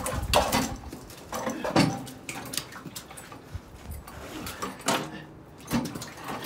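Heavy homemade cross-country ski-trail groomer being wrestled into place by hand: irregular knocks, thumps and scrapes of its frame, coming every second or so.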